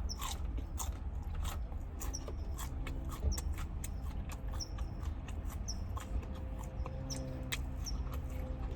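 A person chewing spicy chicken nuggets close to the microphone: a string of irregular wet mouth clicks and smacks over a steady low hum.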